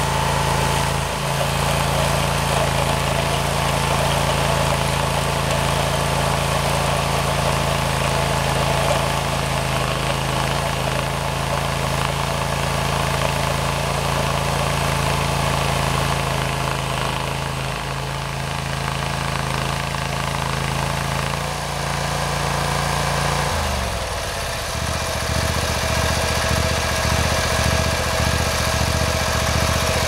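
Ditch Witch walk-behind trencher's gasoline engine running steadily under load as its digging chain cuts a trench in turf. About 23 seconds in, the engine note drops to a lower, uneven run.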